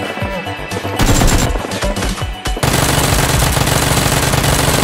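Automatic gunfire sound effect: a short burst of rapid shots about a second in, then continuous rapid fire from about two and a half seconds in, over background music.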